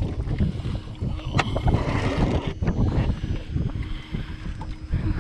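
Wind buffeting the microphone on an open boat, with water lapping at the hull and one sharp knock about one and a half seconds in.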